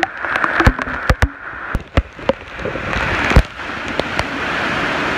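Heavy wind-driven rain in a severe thunderstorm: a rushing downpour that swells about three seconds in, with many sharp, irregular cracks and taps mixed in, thickest in the first half.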